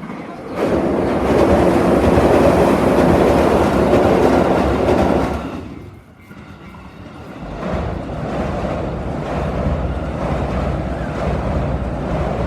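Electric commuter train passing close by, wheels clattering over the rail joints: loud for about five seconds, then a short dip, then a steady rushing noise that builds again and holds.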